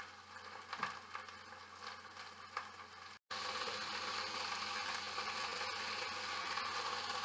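Chicken pieces frying in olive oil in a pan, a steady sizzle with a few light clicks early on. After a sudden break about three seconds in, the sizzle comes back louder and more even.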